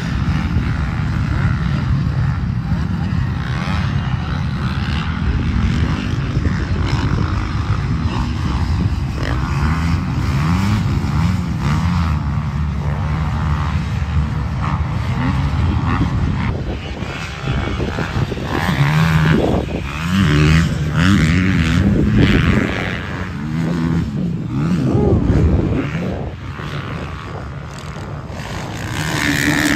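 Motocross dirt bike engines revving up and down as the bikes race round the track, their pitch rising and falling over and over. The revving grows louder in the second half as bikes pass close by.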